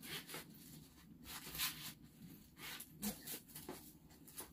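Paper gift envelope rustling and crinkling in short bursts as it is handled and opened.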